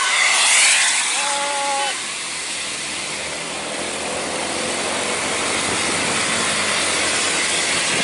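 Steady road and wind noise of vehicles on the move, with a loud hiss in the first second. About a second in, a horn gives one short toot of two notes at once.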